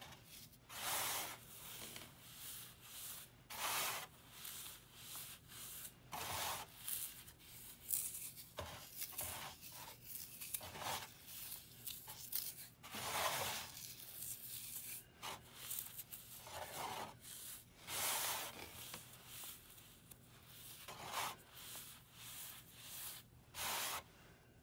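Fingers raking and squeezing crumbled dry floral foam mixed with gym chalk powder: short, gritty rustling crunches that come irregularly, about every one to two seconds.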